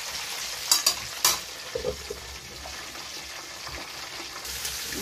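Breaded chicken deep-frying in hot oil in a pan, a steady sizzle, with two sharp clinks about a second in. Near the end the sizzle turns duller as the pan is covered with a metal lid.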